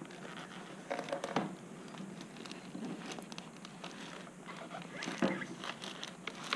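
Plastic airbox being worked down into place over the throttle bodies of a Suzuki Hayabusa: scattered light taps, knocks and rubbing of plastic. There are a few louder knocks about a second in and again a little after five seconds.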